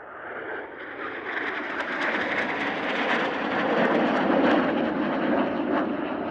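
A formation of three NF-5 jet fighters with twin J85 turbojets passing overhead. The jet noise rises sharply, swells to its loudest a little past the middle, and starts to fade near the end.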